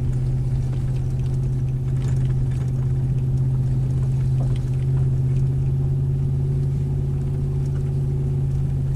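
Vehicle being driven up a potholed back road: a steady low engine drone with road noise, unchanging throughout.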